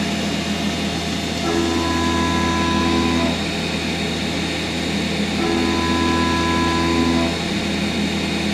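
CNC milling machine cutting metal: a steady low hum, with a cutting tone of several pitches that comes in for about two seconds at a time, twice, about a second and a half in and again at about five and a half seconds.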